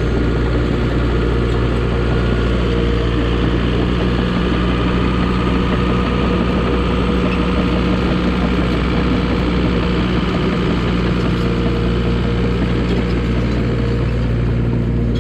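Dresser crawler bulldozer's diesel engine running steadily at a constant speed, with only slight changes in pitch.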